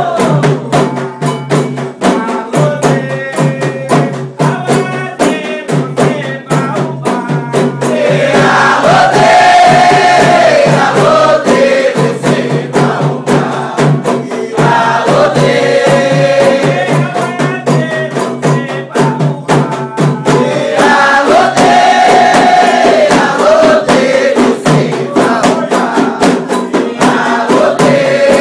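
Candomblé sacred singing for the orixás: voices chanting in recurring phrases over fast, steady percussion of drums and rattles.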